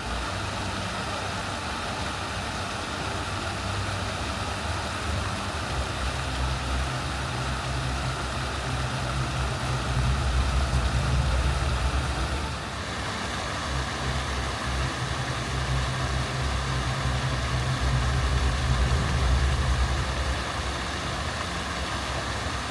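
Motor vehicle engine running steadily, a continuous low rumble with a slight change in its tone about halfway through.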